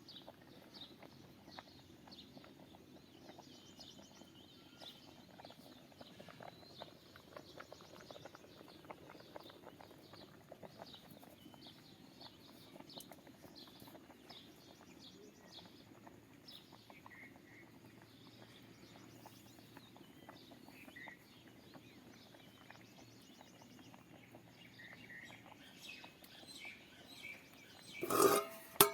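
Small birds chirping faintly and often, with short high calls scattered throughout. Near the end, a short loud noise cuts in.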